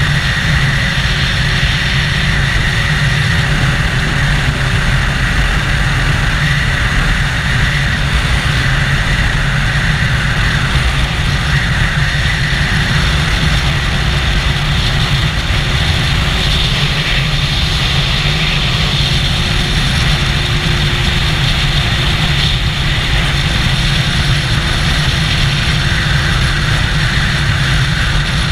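Triumph Daytona 675's three-cylinder engine, fitted with an Arrow exhaust, running steadily at highway cruising speed, mixed with wind noise. The sound stays even throughout, with no shifts or revs.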